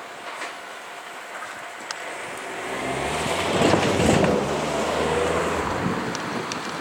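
A vehicle passing close by with a low hum. It swells to its loudest about four seconds in, then eases off.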